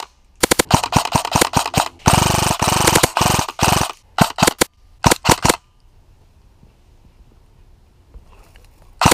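Airsoft electric guns (AEGs) firing: a string of quick shots, then a full-auto burst of about two seconds, then short bursts of a few shots each. Quiet outdoor background follows about halfway through, and the shooting starts again near the end.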